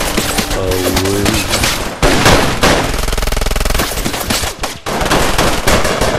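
A volley of gunshots from several guns firing together, shots following each other in rapid succession, with a brief break about two seconds in.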